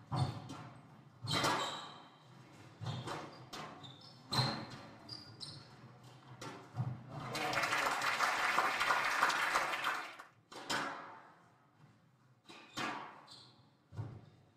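Squash rally on a wooden court: sharp knocks of the ball off rackets and walls, with brief squeaks of court shoes. About seven seconds in the rally ends and the crowd applauds for about three seconds, the loudest sound, then a few more ball knocks follow.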